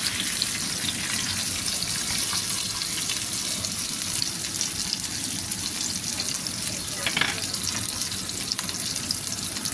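Oil sizzling and crackling steadily as a whole pomfret, already fried once, fries with julienned ginger in a nonstick frying pan.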